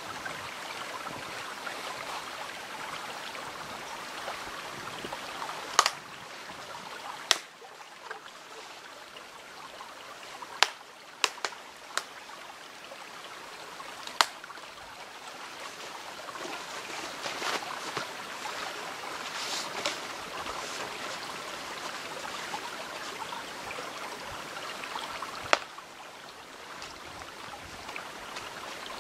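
Small stream running steadily, with about seven short, sharp cracks scattered through, the loudest coming about six, seven, eleven and twenty-five seconds in.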